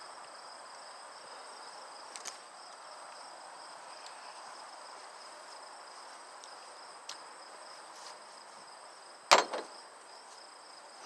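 Insects such as crickets chirring steadily in the background, with a few faint clicks and one sharp, loud knock about nine seconds in, followed by a couple of smaller knocks.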